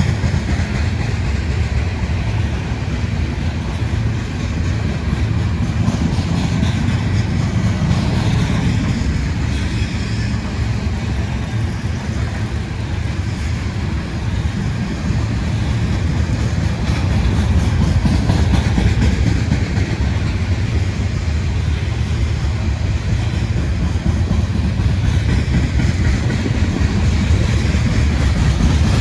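CSX Q368 freight train rolling past, a steady low rumble of wheels on rail.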